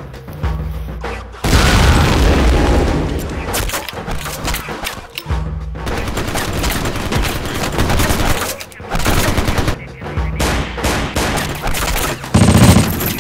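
Film soundtrack of rapid gunfire sound effects, volleys of shots in quick succession, over an action music score, with a louder burst near the end.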